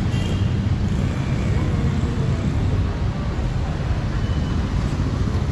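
Steady street traffic: a continuous rumble of passing vehicle engines and road noise, with no pauses.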